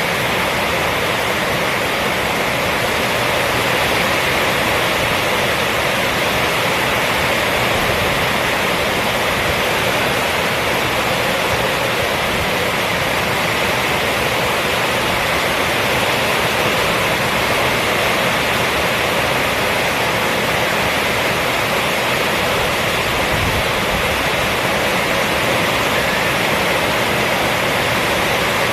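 Rainstorm on a roof: a steady, dense hiss of rain with no single drops, thunder or other events standing out.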